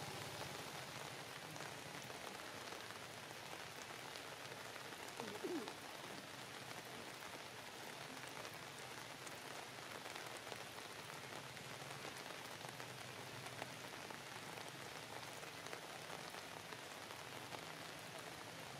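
Steady faint hiss with a fine crackling patter, and a short sliding squeak about five seconds in.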